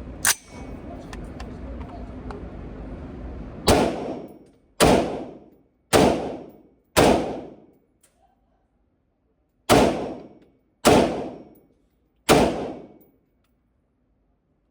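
AR-15 rifle in 5.56 firing seven single shots: four about a second apart, a pause of nearly three seconds, then three more.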